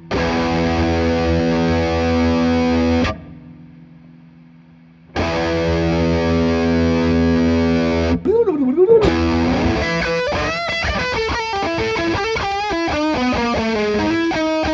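Distorted electric guitar played through a Wampler Plextortion distortion pedal, with a Boss GE-7 graphic EQ boosting the signal in front of it for extra gain. Two chords are struck and left to ring, the first cut short. Then comes a note bent with vibrato and a quick descending lead run ending on a held note.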